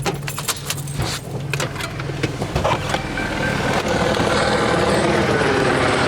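Keys jangling and clicks of car handling, then a helicopter's rotor and engine growing louder from about three seconds in and holding steady.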